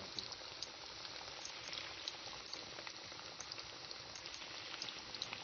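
Fish pieces coated in gram-flour batter deep-frying in hot oil: a steady sizzle with many scattered pops and crackles, the fresh batch just lowered into the pot.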